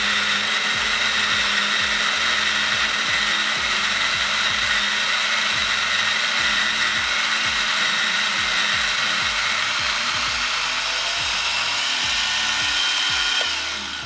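Goat Story Arco grinder on its electric motor base, running at 360 RPM through a 20 g espresso dose: a steady mechanical whine with several held tones. Near the end the sound changes and drops a little as the last of the coffee is ground through.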